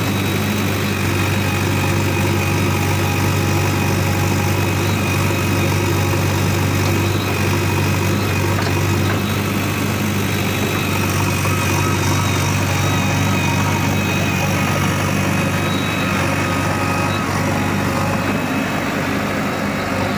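JCB backhoe's diesel engine running steadily with an even low hum.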